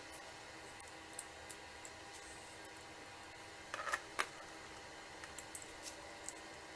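Small scattered clicks and taps from laptop parts being handled, with a short cluster of louder clicks about four seconds in, over a steady electrical hum.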